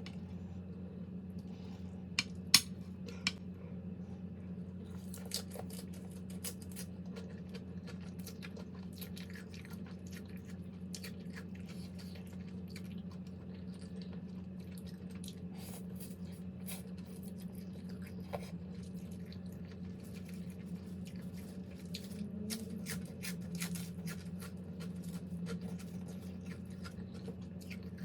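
Eating sounds: utensils clicking against dishes and chewing, in short scattered clicks over a steady low hum, with a few louder clicks about two to three seconds in.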